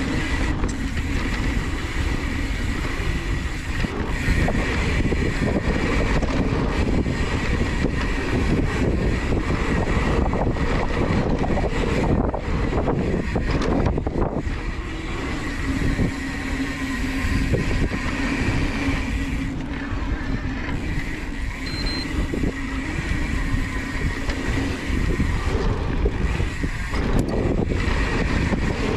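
Mountain bike riding fast along a dirt trail: steady tyre roar and frame rattle, with wind buffeting the microphone. A faint steady whine runs underneath, and small knocks come from the trail surface.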